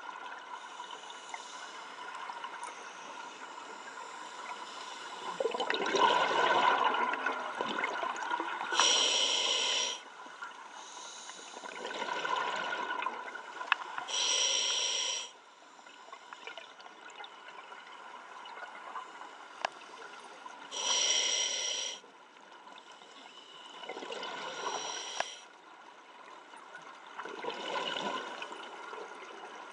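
Scuba diver breathing through a regulator underwater: sharp hissing inhalations alternating with bubbling exhalations, a breath every few seconds.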